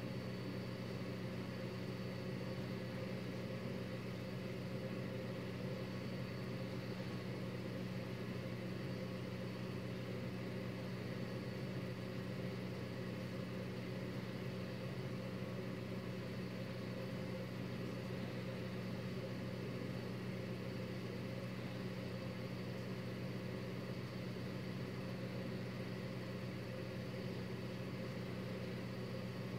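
Steady low hum that does not change, with a faint high whine above it.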